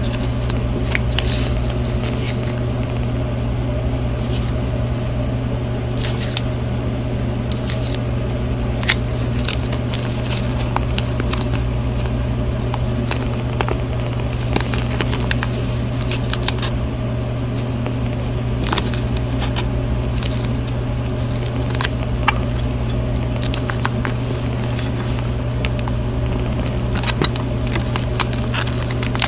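A steady low hum with several constant tones, with scattered light crackles and clicks from parafilm plastic film being handled and stretched.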